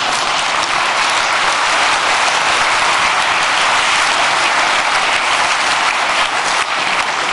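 Large audience in a big hall applauding, a dense, steady clapping that eases slightly near the end.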